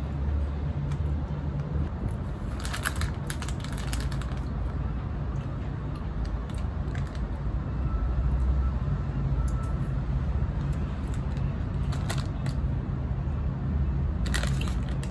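Crinkling of a plastic gummy-candy wrapper being handled: a cluster of crackles about three seconds in, then shorter ones later and near the end, over a steady low rumble.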